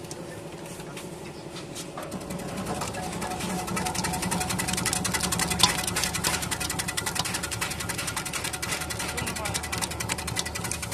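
Electric vegetable cutting machine running: a steady motor hum with rapid clicking as it slices fruit and vegetables, growing louder about two seconds in.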